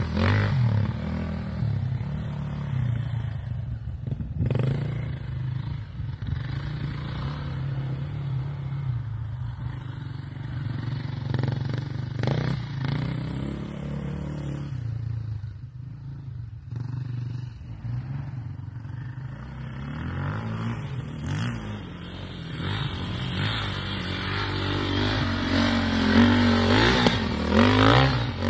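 KTM EXC-F 450 four-stroke single-cylinder engine running as the bike is ridden, its revs rising and falling with the throttle, climbing in a few quick sweeps near the end.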